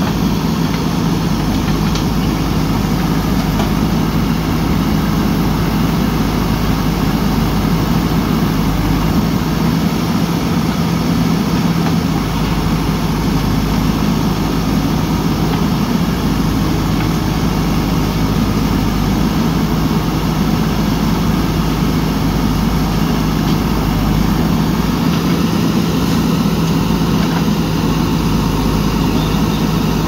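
JCB backhoe loader's diesel engine running steadily while the backhoe arm digs into the bank.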